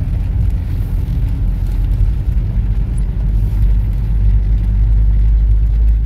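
Motor vehicle driving, a steady low rumble of engine and road noise that grows slightly louder toward the end.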